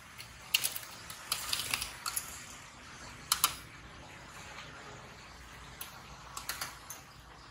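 Metal tongs clicking and clacking against the wire fry baskets and pot rims of a deep-fryer, in several quick clusters of sharp clicks. The loudest come about three and a half seconds in.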